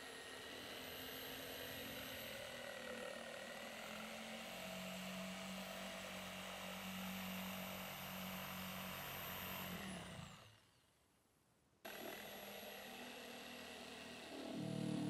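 Electric jigsaw running, its blade sawing through a wooden board. About ten seconds in the motor winds down and stops, and after a second or so of near silence the sawing sound comes back abruptly.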